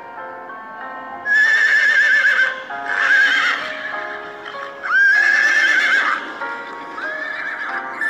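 Horses neighing: three loud whinnies with a quavering, shaking pitch and a softer one near the end, over background music.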